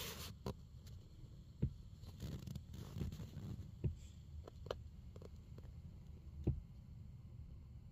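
Faint handling noise: a low rustling rumble with several light clicks and knocks scattered through it.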